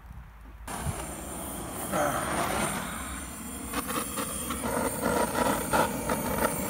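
Handheld gas blowtorch hissing steadily as its flame is held to wood kindling in a barbecue grill to light it. The hiss starts suddenly about a second in and gets louder, with scattered clicks later on.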